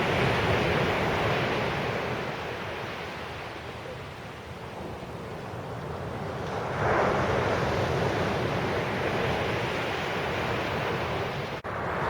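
Surf breaking on the beach, one wave loud at the start and easing off, the next surging in about seven seconds later, with wind rumbling on the microphone.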